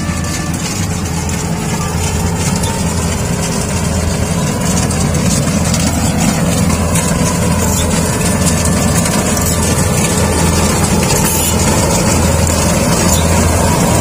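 Rice combine harvester's engine running steadily as the machine works toward the microphone, growing louder over the first several seconds and then holding steady.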